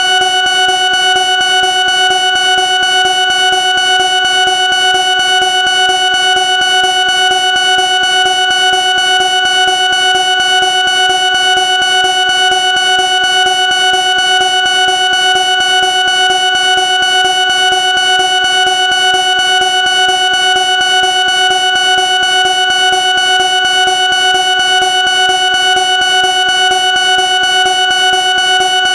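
Smoke alarm sounding continuously: one loud, steady tone that neither pauses nor changes pitch.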